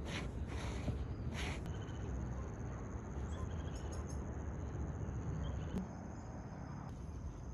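Outdoor ambience: a steady high-pitched insect trill over a low rumble, with a few brief rustles in the first second and a half.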